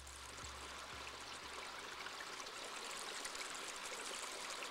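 Faint, steady hiss like running water, with a low hum dying away in the first second and a half.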